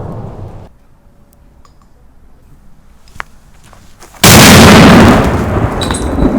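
A firecracker explodes with a very loud bang about four seconds in, and its rumble fades over the next two seconds. Before it, the tail of an earlier blast dies away and cuts off abruptly, leaving a quiet stretch with a sharp click.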